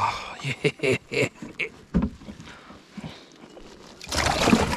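Handling noises aboard a kayak: a string of short, irregular knocks and clicks, then a louder rustle about four seconds in, with the tail of a brief voiced "oh" at the very start.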